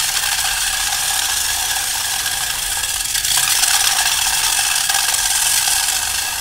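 Orbeez water beads sizzling steadily as they skitter across a hot aluminium pan, riding on their own steam (the Leidenfrost effect).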